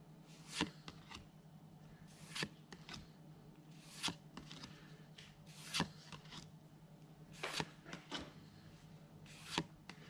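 Trading cards being flipped through one at a time by hand, each card slid off the stack with a short papery swish, about seven in all, roughly one every second and a half to two seconds.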